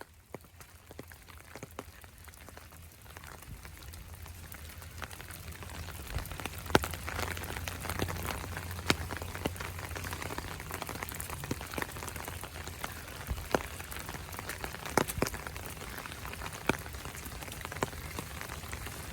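Steady rain falling, with scattered sharp drips landing close by. It grows louder over the first several seconds, then holds steady.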